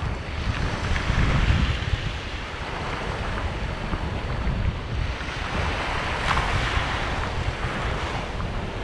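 Small waves washing onto a sandy beach, a steady rush, with wind buffeting the microphone in low gusty rumbles.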